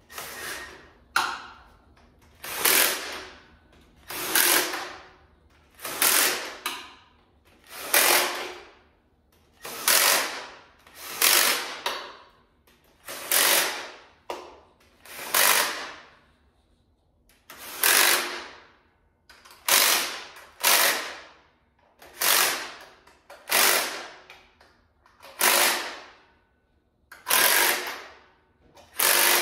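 Cordless impact driver running down the intake manifold bolts on a 4.8L LS V8, in short runs of under a second each, one about every second and a half.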